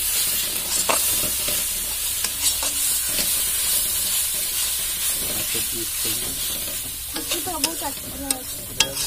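Spice masala of onion and ginger-garlic paste sizzling in oil in a metal kadhai as a spatula stirs it, with scattered clicks and scrapes of the spatula against the pan.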